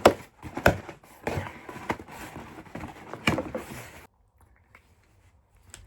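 A small package being opened and its contents handled: a run of knocks and rustling that stops abruptly about four seconds in, with one faint click near the end.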